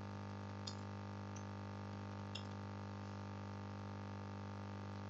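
Steady low electrical hum with several higher hum tones, and two faint clicks about a second apart early on.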